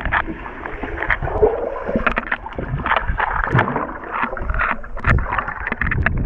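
Pool water heard with the microphone underwater: muffled gurgling and churning, with irregular splashy surges from a child kicking and paddling close by.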